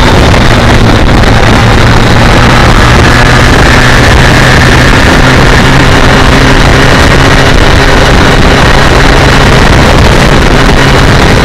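BMW K1200R Sport's inline-four engine running at a steady cruise, mixed with heavy wind rush on the microphone.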